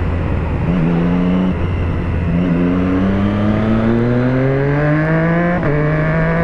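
Sport motorcycle engine accelerating through the gears. Its pitch steps up briefly about a second in, then rises steadily for about three seconds and drops suddenly with an upshift near the end, over wind rush.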